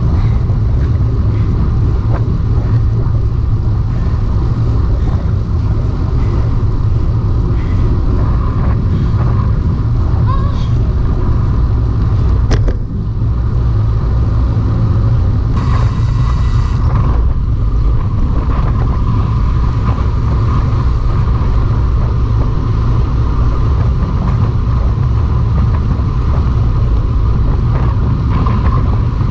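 Steady low rumble of wind and road noise picked up while riding a road bicycle, with a short hiss about halfway through.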